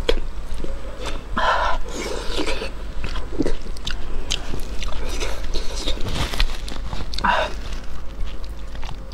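A person biting and chewing food close to a clip-on microphone, in irregular bursts of mouth noise, with louder ones about one and a half and seven seconds in.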